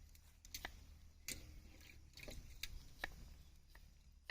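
A knife cutting vegetables: faint, irregular clicks and taps, about half a dozen spread unevenly.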